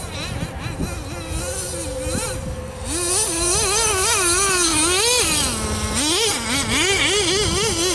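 Traxxas Jato 3.3 nitro RC buggy's TRX 3.3 two-stroke glow engine revving up and down under the throttle as the buggy is driven, its pitch rising and falling rapidly. It grows louder about three seconds in.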